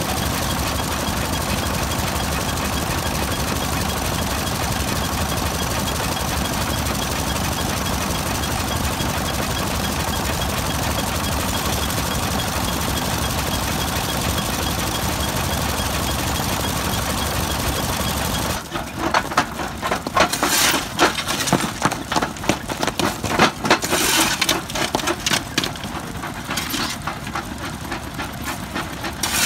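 A vintage stationary engine running steadily while driving a water pump. About two-thirds of the way through, this gives way to a flywheel-driven stone jaw crusher cracking stone, a dense, irregular run of sharp cracks and clatters.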